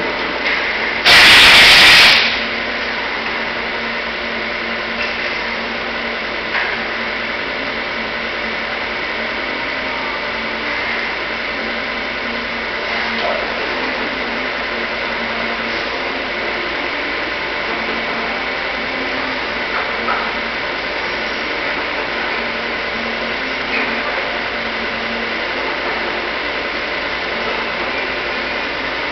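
Milling machine running steadily with a constant motor hum and faint scattered ticks. A loud hiss lasting about a second cuts in about a second in.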